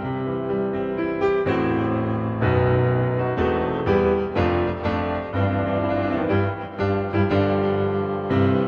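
Background piano music, a keyboard playing a steady run of notes and chords.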